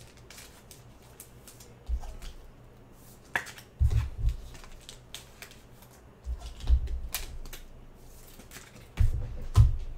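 Trading cards being handled and set down on a table: scattered light clicks and flicks with a few dull thumps, the loudest near the end.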